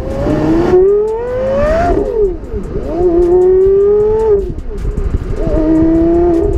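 Porsche Carrera GT's 5.7-litre V10 under hard acceleration. The engine note climbs steadily in pitch for over a second, falls away briefly, then pulls twice more with short dips between the pulls.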